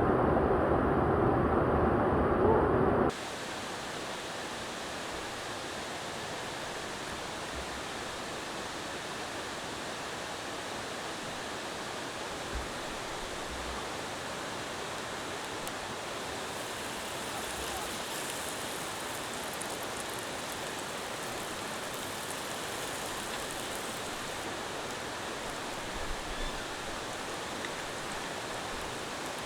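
Mountain stream water rushing steadily over rocks. About three seconds in the sound cuts abruptly from a louder, deeper rush to a quieter, hissier one.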